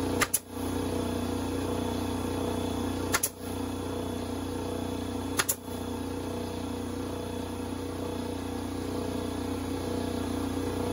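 A motor running with a steady hum, with three sharp shots of a staple gun fastening chicken wire to a wooden stall wall, spaced two to three seconds apart.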